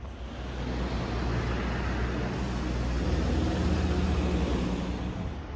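A motor vehicle passing close by on a city street. Its engine hum and tyre noise swell to a peak about three to four seconds in, then fade.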